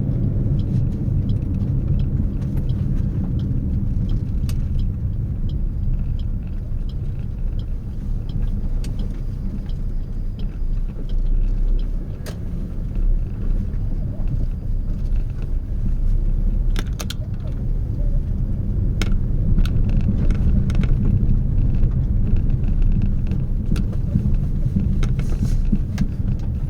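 Steady low rumble of a car driving, heard from inside the car, with a few light clicks and taps.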